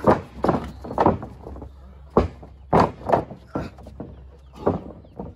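Wrestlers' strikes and body impacts in a backyard wrestling ring: a string of sharp slaps and thuds, roughly two a second, with a heavier thud a little after two seconds in.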